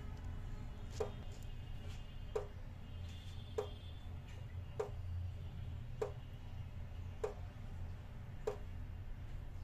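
Evenly spaced sharp ticks, about one every 1.2 seconds, over a steady low hum.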